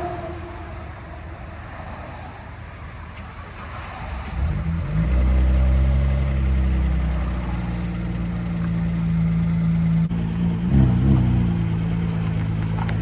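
Porsche Boxster's replacement engine catching about four seconds in and settling into a steady cold idle, with a short blip of revs a few seconds later.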